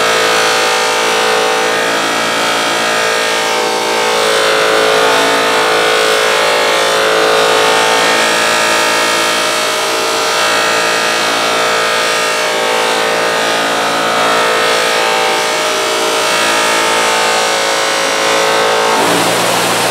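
Bench buffer running steadily with a steel axe head held against its spinning cloth buffing wheel, a steady multi-toned motor whine, while the pitted head is being polished.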